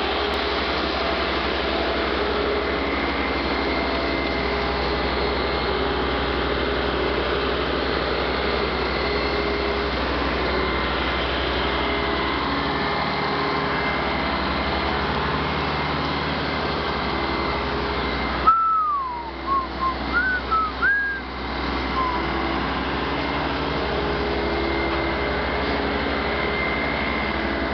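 Mobile concrete pump running steadily with a loud mechanical drone. About two-thirds in, the drone drops away for a few seconds and a few short whistles are heard before the running sound returns.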